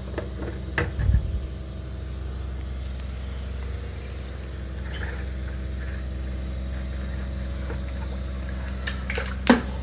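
Steady low electrical hum with a faint high hiss. A light click comes about a second in and a sharper click near the end, as the small plastic hydrogen water booster is handled on the counter.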